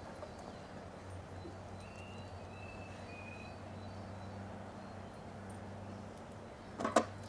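Outdoor background: a steady low hum, a few faint high bird chirps, and one short loud cry or yelp near the end.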